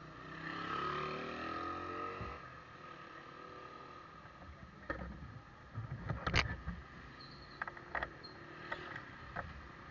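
A motor vehicle's engine runs past with a rising pitch for about the first two seconds. Then comes a scatter of knocks and clicks from the camera being moved, the loudest about six seconds in.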